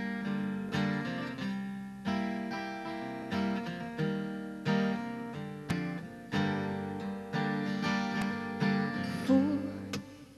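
Steel-string acoustic guitar playing a solo instrumental intro, fingered chords ringing out one after another.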